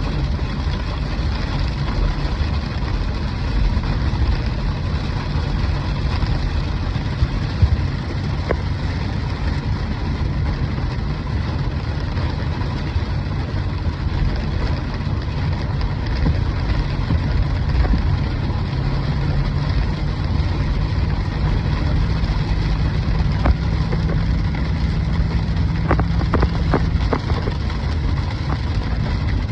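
Hail falling hard, a dense steady clatter, over a low steady rumble; a few sharper single hits stand out near the end.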